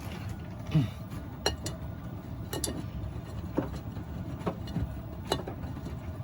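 Miele washing machine running: a steady low rumble with a few sharp clicks spaced about a second apart.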